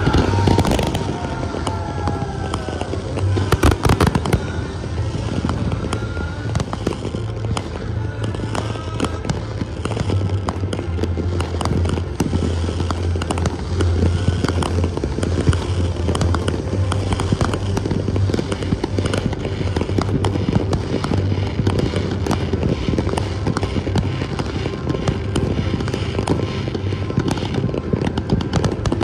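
Fireworks going off: a steady run of bangs and pops from comets and shells fired in fans, with a dense volley of loud bangs about four seconds in.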